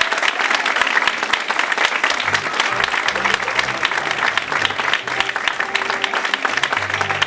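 Audience applauding, with instrumental music and a low bass line coming in about two seconds in.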